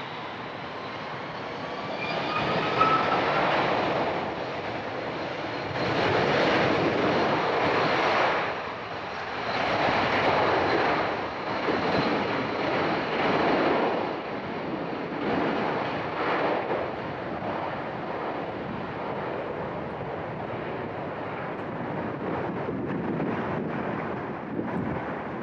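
Boeing 747-400's four jet engines at takeoff thrust as it departs: a broad jet roar with a faint rising whine early on, swelling and fading in waves, then easing off toward the end.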